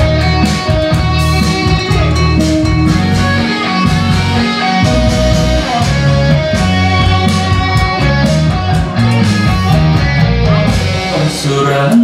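Band playing the instrumental introduction of a Korean pop song, with drums and a steady beat under a melodic lead line, before the vocal comes in.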